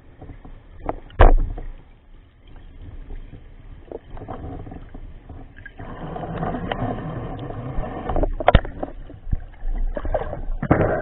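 Underwater sounds picked up by a diver's camera: sharp knocks, the loudest about a second in and another about eight and a half seconds in, with stretches of rushing water noise in between.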